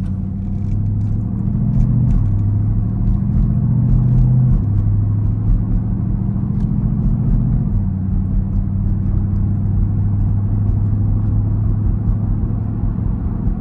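Dodge Durango SRT 392's 6.4-litre HEMI V8 heard from inside the cabin while driving. A steady low drone whose pitch steps up or down a few times, at about two, four and a half and eight seconds in.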